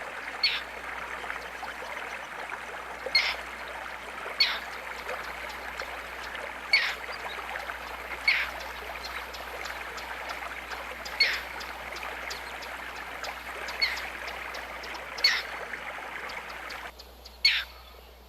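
A bird repeats a short call that slides steeply downward in pitch, nine times at uneven intervals of one to three seconds, over a steady background hiss.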